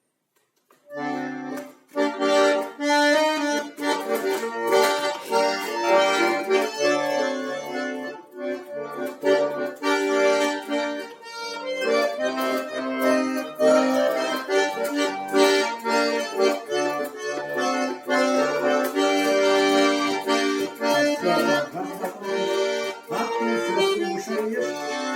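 Russian garmon (button accordion) playing an instrumental introduction, starting about a second in: a melody with chords over a steady rhythm of short bass notes.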